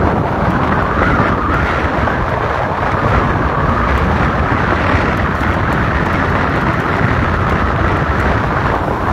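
Steady wind rush over the microphone of a moving hire motorcycle, mixed with the bike's engine running at an even cruising pace.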